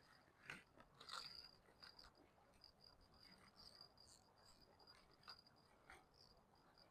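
Near silence, with a faint, high, steady chirping like an insect and a few soft rustles and clicks.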